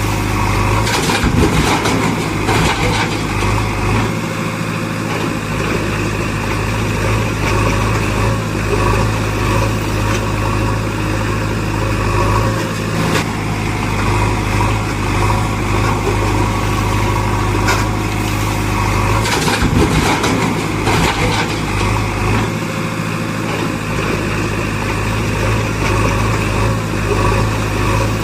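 Vehicle engine running steadily at idle, the same stretch of sound repeating about every 18 seconds like a looped engine sound effect.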